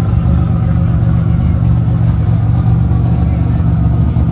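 Drag car's engine idling steadily, loud and close.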